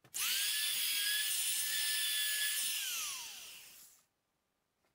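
Trim router switched on, quickly reaching speed and running with a steady high whine for nearly three seconds, then switched off, its pitch falling as it spins down.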